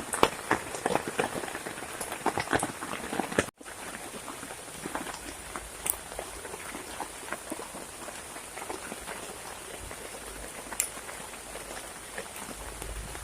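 Heavy rain falling, a steady hiss with many sharp drop hits. About three and a half seconds in the sound cuts out for an instant, and after that the drop hits are sparser over the hiss.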